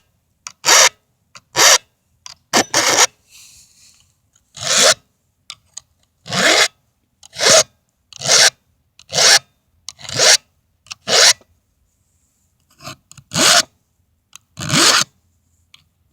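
Chainsaw file rasping across the cutters of a Stihl MS 180 chain being sharpened by hand: about a dozen separate strokes, roughly one a second, with two short pauses.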